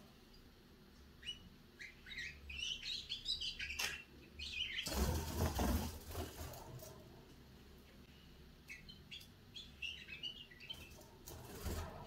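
Young canary twittering in short, high chirping notes, the early song of a juvenile bird. About five seconds in, a loud burst of wing flapping breaks in as a bird flutters through the cage, and a shorter flutter comes near the end.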